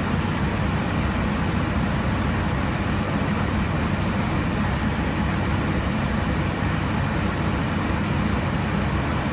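Steady rushing of air and engines heard inside an airliner's cockpit in cruise flight: an even, deep hiss that does not change.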